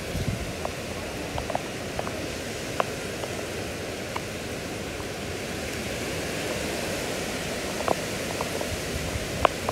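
Steady hurricane rain falling, an even hiss with scattered light taps of drops.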